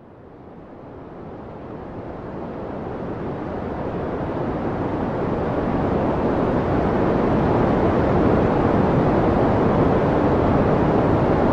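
A steady rushing noise, like surf or a hiss, swelling gradually from faint to loud over about six seconds and then holding.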